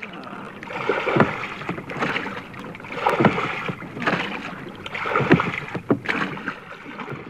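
Oars dipping and pulling through water in a steady rowing rhythm, with a splashing surge roughly every second over a continuous wash of water.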